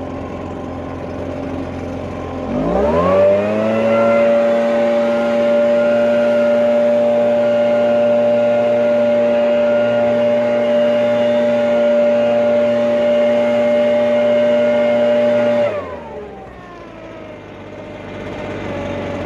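Small lawn-equipment engine idling, then throttled up about two and a half seconds in to a steady high-speed run. It holds there for about 13 seconds, then drops back to idle near the end.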